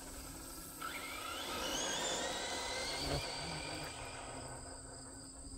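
RC drag truck's electric motor whining as it accelerates, the whine rising steadily in pitch for about three seconds and then fading.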